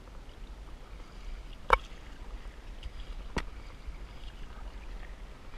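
Paddling an inflatable canoe with a double-bladed paddle: soft wash of the strokes over a low steady rumble, with two sharp knocks about a second and a half apart, the first and louder one under two seconds in.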